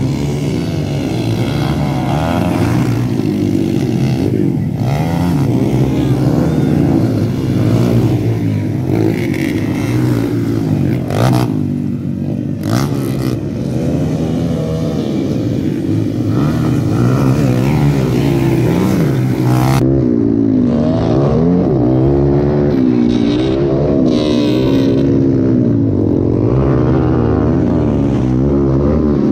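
Motocross dirt bike engines revving hard, the pitch rising and falling again and again as the riders throttle up and shift through the gears. About twenty seconds in, the sound turns duller and loses its high end.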